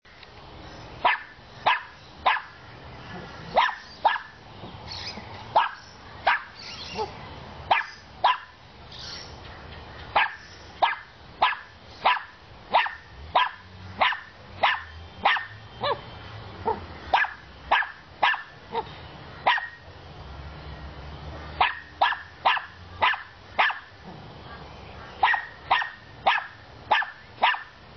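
A dog barking over and over, short sharp barks about one or two a second, in runs broken by a couple of brief pauses.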